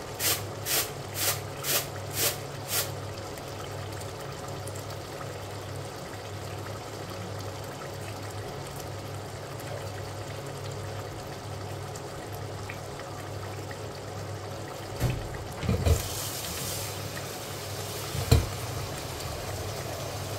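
Meat curry bubbling and spitting in a steaming steel pot on the hob, over a steady low hum. In the first three seconds come about seven sharp clicks, roughly two a second, and a few louder knocks follow near the end.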